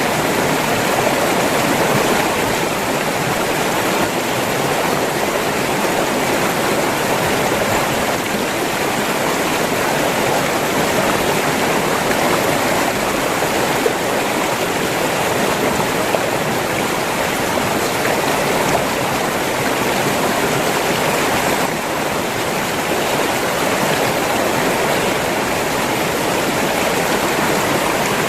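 River water flowing and splashing over rocks, a steady full rush without a break.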